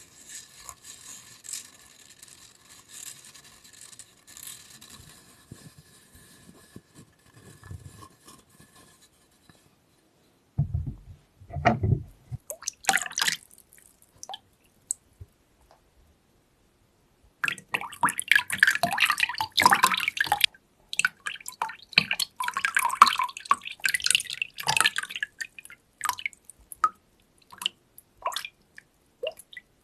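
Water splashing and dripping while wet paper pulp is laid out on a paper-making screen. It opens with a faint trickle and has a dull knock near the middle. A long stretch of splashing and dripping comes a little past halfway, then a few scattered drips.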